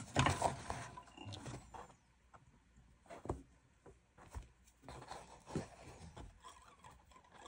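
Handling noises: a cap rustling and bumping against the post-bed sewing machine as it is fitted under the presser foot, with a loud rustle right at the start and a few separate knocks later on. The machine is not stitching.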